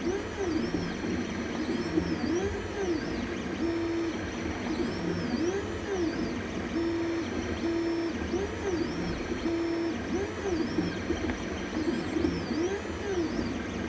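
Anycubic Chiron 3D printer's stepper motors whining as the print head moves back and forth, in repeated rising-and-falling pitch sweeps between short held tones.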